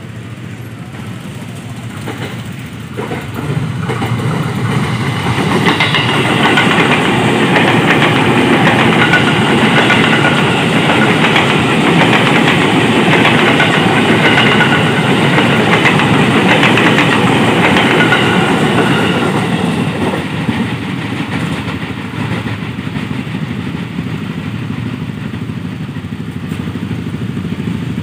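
KRL Commuter Line electric train passing close by, its wheels clattering over the rails. It grows loud a few seconds in, stays loud for about fourteen seconds, then fades.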